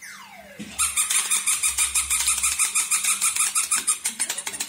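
Toy puppy giving off a downward-sliding squeal, then a fast, even run of squeaky pulses, about eight a second, lasting roughly four seconds.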